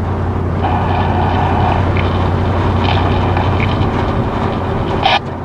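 Steady low drone of a vehicle's engine and road noise while driving.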